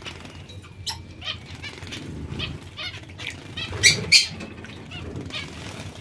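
Finches bathing in a metal water bowl: wing flutters and splashing, with two louder flurries about four seconds in, amid short chirping calls.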